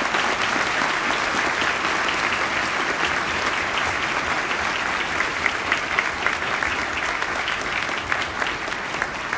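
Audience applauding steadily, with single sharper claps standing out in the second half.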